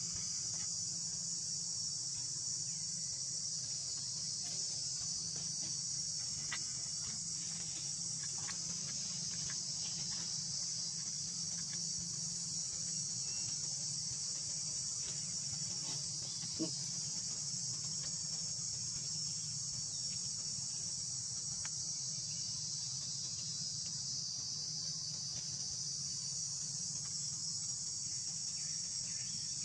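Steady, high-pitched insect chorus droning without a break, with a faint low hum under it and a single soft tick about sixteen seconds in.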